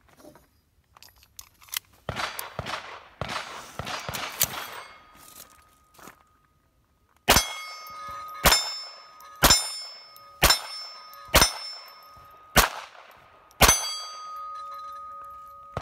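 Seven shots from a Smith & Wesson SW22 Victory .22 rimfire pistol, about a second apart, each answered by the ring of a struck steel plate target. They follow a few seconds of clicking and rattling as the pistol is handled and readied.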